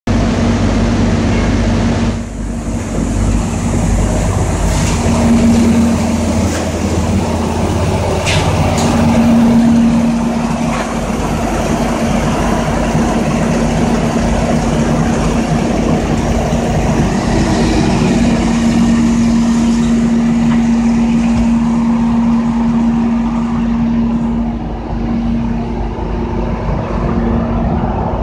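BMW sedan's engine running steadily during a hydrogen carbon-cleaning treatment, with gas from the cleaning machine fed into its intake; a steady low hum sits over the running engine.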